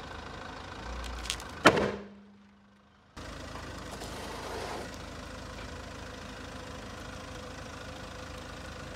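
Slowly rolling car tyre squashing an inflated rubber play ball, with the car's engine idling. A little under two seconds in the ball bursts with one very loud bang and a short fading ring; the idling then resumes as the tyre presses down on a second ball.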